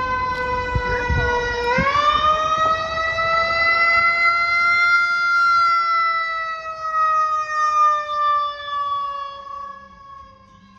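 Federal Q mechanical siren on a responding fire engine, wailing steadily. It is spun back up sharply a little under two seconds in, holds its high pitch, then slowly winds down over the last few seconds. The truck's engine rumbles underneath in the first two seconds.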